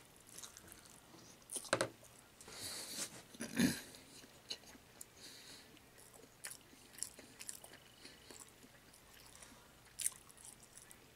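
A person biting into and chewing a rice-studded meatball, with close, wet mouth sounds and scattered sharp clicks; the loudest bursts come between about one and a half and four seconds in.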